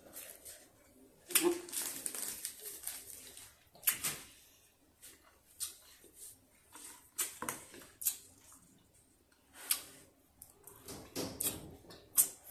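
Close-miked clicks, crinkles and rustles of sour candy and its plastic packet being handled and eaten, in irregular bursts, the busiest about a second and a half in and again near the end.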